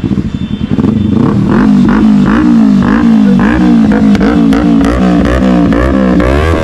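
Sport motorcycle engine running with the throttle blipped again and again, its pitch rising and falling in quick revs.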